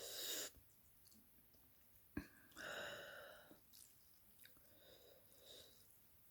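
Quiet eating sounds: two short slurps of ramen noodle soup about two and a half seconds apart, with a small click between them.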